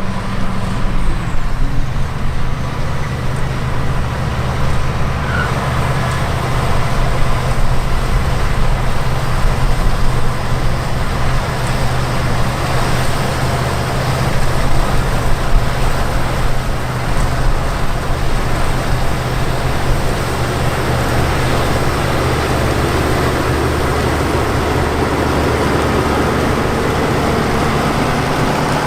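Heavy six-cylinder diesel harvest machinery running steadily: a low engine drone with dense mechanical noise over it.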